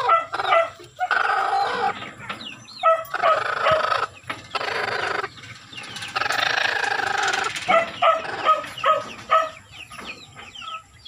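Brooding mother hen calling from her nest in a wire cage: a string of drawn-out calls, each about a second long, with short high chirps in between.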